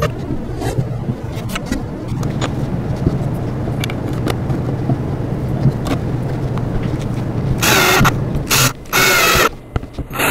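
Cordless drill driving screws into the panels of a doll sofa, in three short whirring bursts near the end, with a few light knocks of the parts being handled before them.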